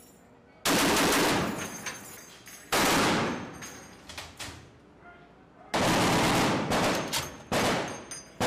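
Ship-mounted .50-calibre heavy machine gun firing four short bursts of automatic fire, each one trailing off afterwards.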